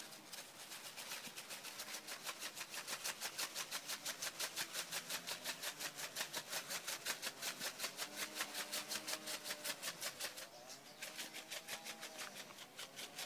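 Steak seasoning rattling in a glass shaker jar that is shaken rapidly and steadily, about six shakes a second. The shaking stops briefly about ten seconds in, then starts again.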